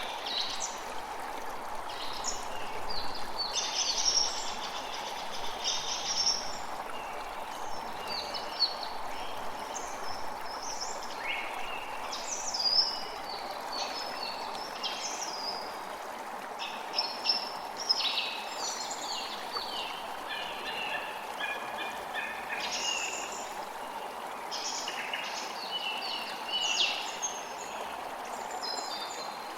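Steady rush of running water with many birds chirping and singing over it, short calls and trills coming one after another.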